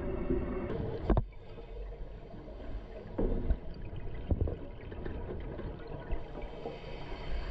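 Water sloshing and gurgling, with a sharp knock about a second in and a few softer thumps after.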